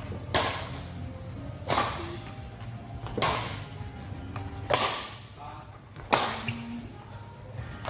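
Badminton rackets striking a shuttlecock hard in a long-clear drill: five sharp cracks, about one every second and a half, each ringing briefly in the hall.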